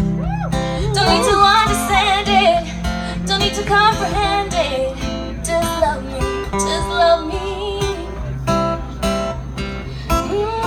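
A woman singing long, wavering notes with vibrato over a steadily strummed acoustic guitar.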